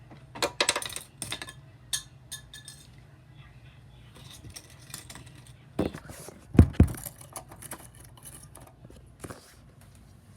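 Objects being handled close to the microphone: a quick run of sharp clicks and clatters in the first few seconds, then a couple of heavy thumps a little past the middle, the loudest sounds, and a last click near the end.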